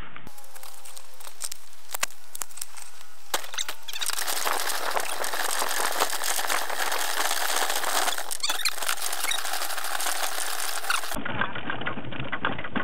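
Bicycle being walked over a rough dirt path with the camera fixed to it: rattling and clicking from the frame and handlebar, with a squeak early on. A steady rushing noise fills the middle part.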